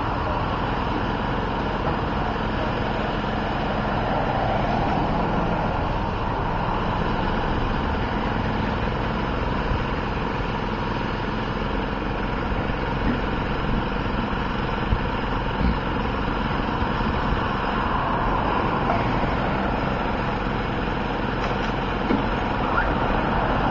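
Steady engine hum of an idling vehicle, even throughout, with a few small clicks in the second half.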